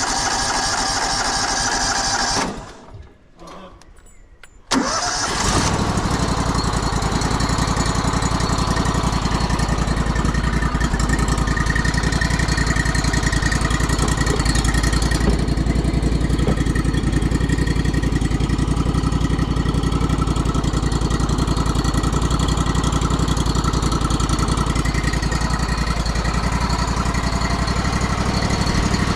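A portable sawmill's engine being started. It sounds for about two and a half seconds, dies away, then catches again about five seconds in and settles into steady running.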